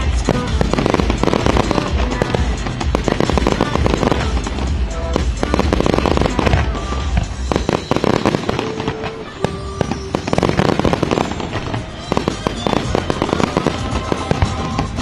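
Aerial fireworks bursting and crackling in a dense, continuous barrage of bangs and rapid crackle.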